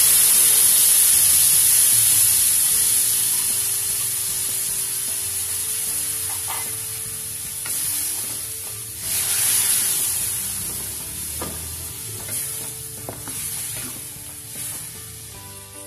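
Beef sizzling in a hot wok just after a liquid is poured in, the sizzle loud at first and slowly dying down, with a second swell about nine seconds in. A wooden spatula stirs and scrapes the meat against the pan, with a few sharp knocks.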